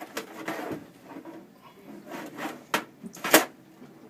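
Hands working an HP desktop PC's case cover, pressing its side release buttons and pushing on it: rubbing and scraping against the case, then two sharp clicks a little over half a second apart, the second the loudest.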